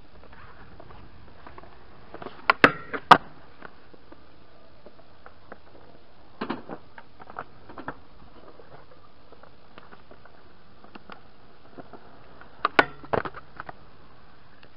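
Sharp clacks of a skateboard on concrete: board pops, landings and wheel knocks, in three short clusters of a few hits each, a few seconds in, near the middle and near the end.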